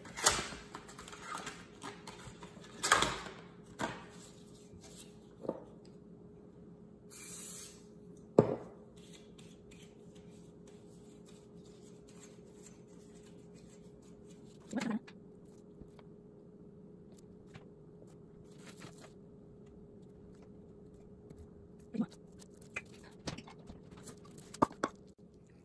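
Scattered sharp knocks and clicks as a crinkle-cut knife is handled and pressed through a steamed layer cake onto a plastic-wrapped wooden cutting board, with a short rustle of plastic about seven seconds in. A faint steady hum underlies it.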